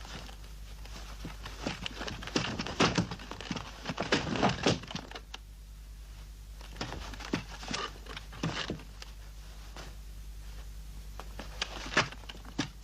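Clattering clicks, knocks and rattles of a telephone being fiddled with and taken apart by hand and with tools. They come in clusters: a busy run a couple of seconds in, a sparser one around the middle, and a single sharp knock near the end.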